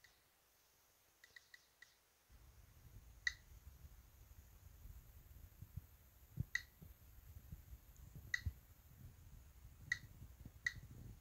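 Geiger counter clicking sporadically and irregularly, each click one detected particle of radiation. A faint low rumble of handling noise comes in about two seconds in.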